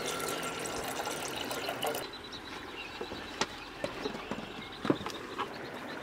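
Steaming hot water poured in a stream into a cup, a steady splashing fill that stops abruptly about two seconds in. A few light clicks and taps follow.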